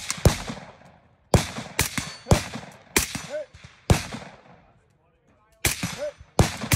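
AR-style semi-automatic rifle firing at close range: about eight shots in quick, uneven succession, each report trailing off, with a short pause about five seconds in.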